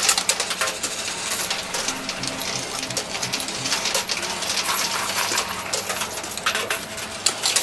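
Quarters dropping into a coin pusher machine and clinking on the metal shelf and the coin bed: a continuous run of small metallic clinks.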